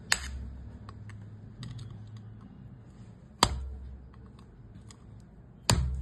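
Three sharp metal-on-metal taps on a steel rod used as a drift, driving a rocker-arm pin bit by bit into a Hero iSmart motorcycle cylinder head: one just after the start, one about three and a half seconds in, one near the end, with a few faint clicks between.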